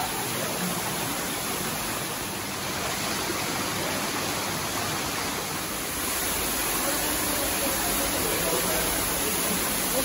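Steady rushing of water: a waterfall and the shallow creek below it running over pebbles. A deeper rumble joins about six seconds in and the sound grows slightly louder.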